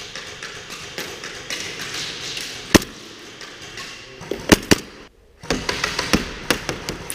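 Airsoft guns firing in a game, sharp snaps of shots and BB hits: a single one about three seconds in, a pair about a second and a half later, then a quick, uneven run of them near the end.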